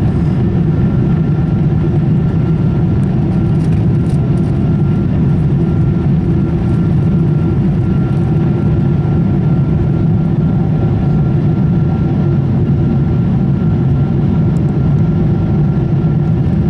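Cabin noise of a Boeing 777-200ER climbing after takeoff, heard from a window seat over the wing: a loud, steady, low rumble of the engines and rushing air, with a faint steady whine above it.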